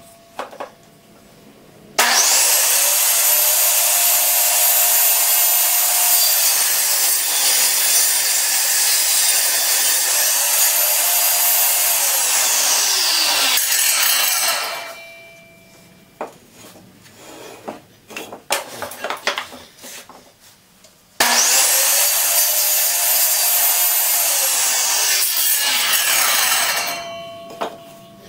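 Chop saw (miter saw) making two cuts through pine 2x4. Each time the motor spins up with a rising whine, dips in pitch as the blade goes through the wood, then winds down. Between the two cuts are a few knocks and clicks as the board is moved along the jig.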